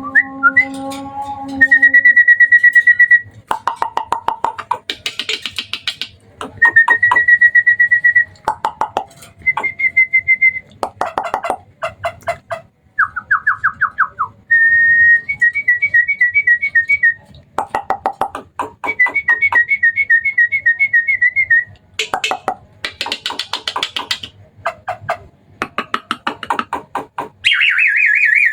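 Hybrid Asian pied starling (jalak suren) singing a long, varied song: clear held whistles alternating with fast rattling chatter and short harsh, hissing phrases, in bursts with brief pauses.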